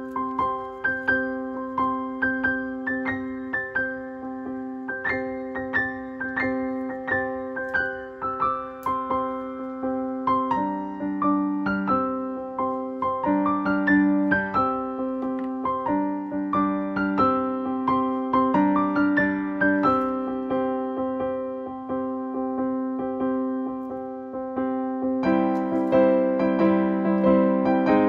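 Background music: a gentle piano melody over held chords, growing fuller near the end.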